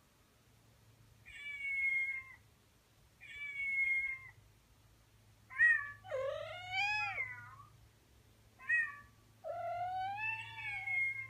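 Two cats meowing back and forth: a kitten's short, high meows, twice early and then twice more, answered by a male Persian cat's longer, lower meows that rise and fall in pitch.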